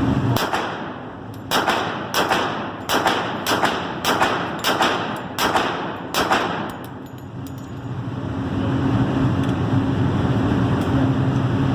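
A string of about nine semi-automatic gunshots, half a second to a second apart, each sharp with a short ringing tail. After that a steady low hum takes over.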